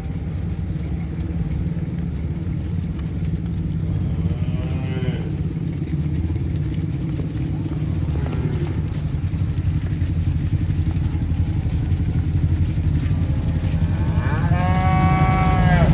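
Cattle mooing: a moo about four seconds in, a faint one near the middle, and a louder, longer moo near the end, each rising then falling in pitch, over a steady low rumble.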